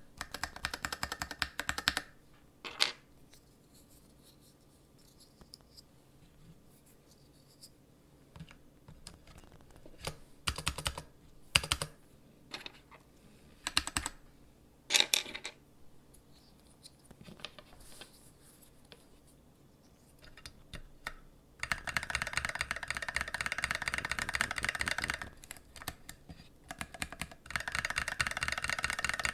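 Mechanical keyboard with linear switches being typed on. There is a quick run of keystrokes at the start, then scattered single key presses and short clusters, then two long stretches of fast, continuous typing near the end.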